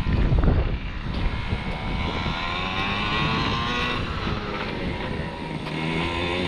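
Two-stroke gas engine of a large-scale Primal RC Raminator monster truck, running on a fresh break-in and revving up and down with the throttle as it is driven.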